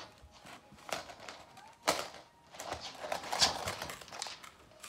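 Samoyed puppy playing with a toy on a laminate floor: a run of scattered clicks and knocks as the toy and paws strike the floor, with one sharp knock just before two seconds in and a busy stretch of clatter in the second half.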